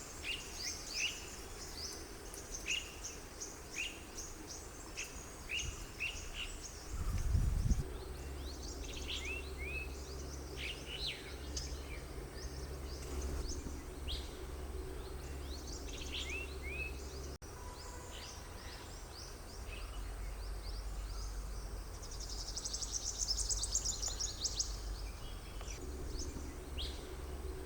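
Small forest birds calling: many short, high chirps that sweep downward, repeated at irregular intervals, with a fast high trill near the end. A brief low thump about seven seconds in.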